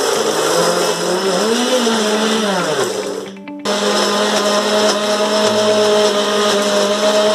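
Electric mixer grinder running with its small jar, grinding shallots, garlic, ginger and red chili into a fine paste. It runs for about three seconds, stops briefly, then starts again and runs on steadily.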